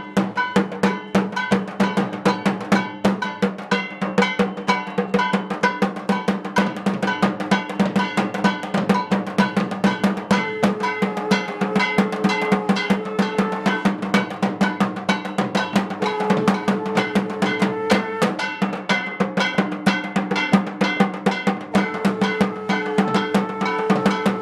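Two drums played together in a fast, steady beat: an upright barrel drum struck with a stick and a horizontal two-headed drum played by hand. Three times, about ten seconds in, about sixteen seconds in and near the end, a held, slightly rising tone of a blown conch shell (shankh) sounds over the drumming.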